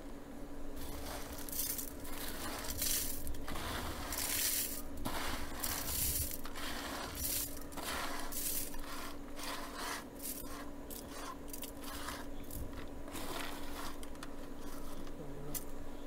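Coconut-shell charcoal pieces clinking and scraping against each other in a filter barrel, in irregular rattles and crunches, with water trickling onto them at the start.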